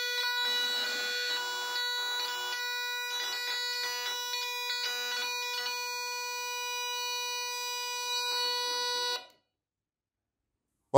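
Speaker output of a homemade Arduino nRF24 walkie-talkie receiver: a steady high-pitched whine with a row of overtones, mixed with crackly noise, cutting off abruptly about nine seconds in. It is the circuit noise that the added amplifier and output filter fail to remove.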